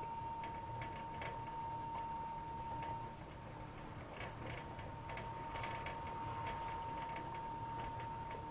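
Yama glass siphon coffee maker on an electric burner during the steep: faint, irregular little clicks and pops as steam bubbles up from the lower carafe into the coffee in the top bowl. A steady, thin high-pitched whine sounds beneath it.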